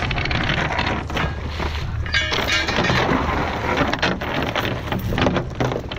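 Anchor chain rattling and clinking as it is fed by hand over a small boat's bow, with a dense burst of rattling about two seconds in. Wind and choppy water rush underneath.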